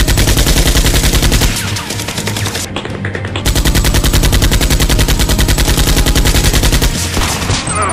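Rapid automatic gunfire sound effect in two long bursts with a short lull between, dubbed over a toy blaster being fired, with background music underneath.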